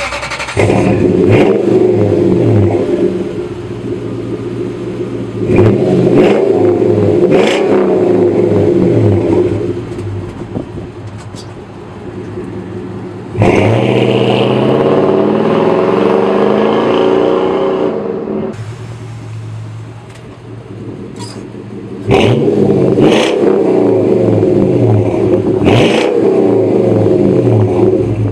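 Toyota Sequoia V8 breathing through a Flowmaster 40 Series exhaust, revved repeatedly from idle. It gives several sharp blips in quick pairs and one longer rev held for about five seconds near the middle, dropping back to a deep idle rumble between the bursts.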